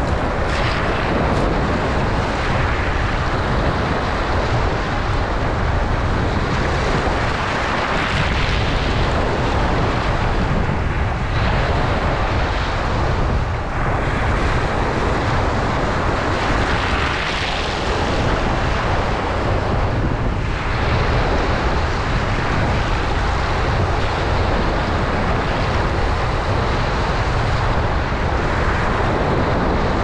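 Small waves washing up over a pebble beach close to the microphone: a steady rush of surf that swells every few seconds, over a constant low rumble on the microphone.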